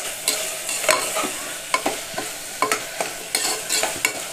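Slotted metal spatula scraping and knocking against the inside of a pressure cooker, about twice a second, while double beans with onion and tomato are stirred and sautéed over a steady sizzle of frying oil.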